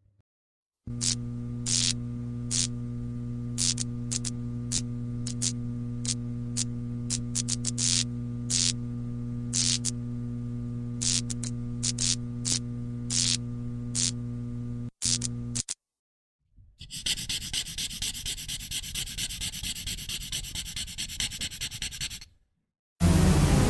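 Electrical neon buzz: a steady mains-type hum with irregular crackling sparks, cutting off suddenly after about 15 seconds. Then a painting sound effect, a rough, rapidly fluttering hiss lasting about five seconds. A louder effect starts just before the end.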